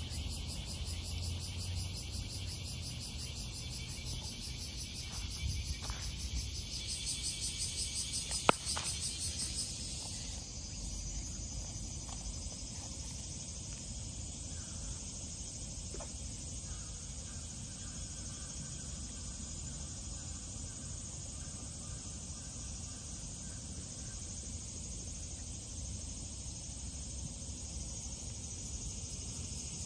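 Insects trilling steadily in a high, finely pulsing drone that swells for a few seconds about a third of the way in, with one sharp click in that louder stretch.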